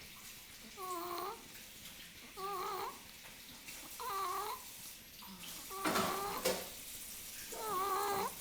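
Snoring: short, high-pitched, wavering snores like Donald Duck's voice, one about every second and a half, five in all. Two sharp clicks come with the fourth snore, about six seconds in.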